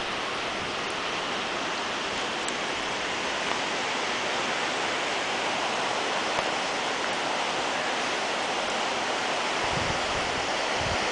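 Steady rushing noise of a flooded river running fast and high. A few low thumps come in near the end.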